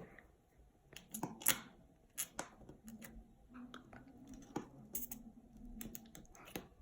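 Faint, scattered clicks and small squelches of slime being squeezed and handled, about a dozen short sounds at uneven intervals.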